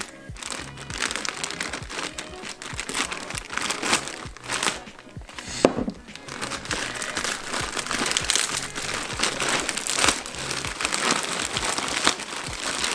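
Plastic poly mailer bag crinkling and rustling as it is torn open and handled, with one sharp snap about five and a half seconds in.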